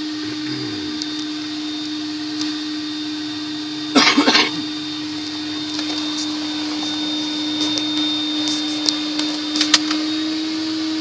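Ryko Softgloss Maxx soft-touch in-bay car wash at work on the car ahead, heard muffled from inside a waiting car. It makes a steady machine hum with a blower-like whoosh. A short, loud burst of noise comes about four seconds in.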